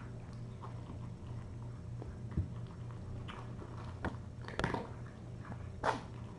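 Steady low hum with a few scattered clicks and short scratchy scrapes, the loudest two near the end: cats playing close to the camera's microphone.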